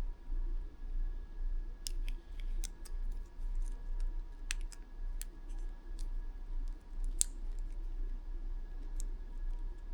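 Scattered short, sharp clicks and taps at irregular intervals, over a steady low electrical hum.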